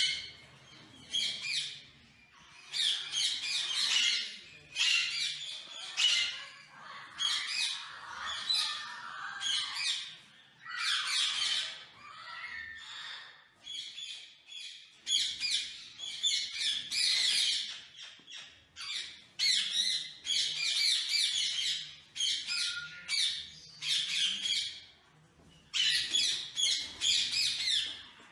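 Alexandrine parrots squawking: harsh calls in repeated bursts of a second or two, with short pauses between them.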